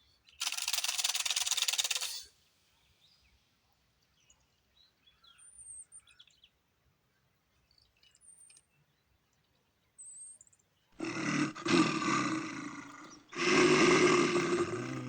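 A dry rattling hiss lasting about two seconds, a few faint high chirps, then two long, rough roars like a big cat's, one straight after the other near the end.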